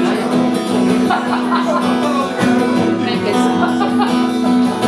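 Acoustic guitar improvising a solo over a repeated low pedal note, with a melodic line picked above it.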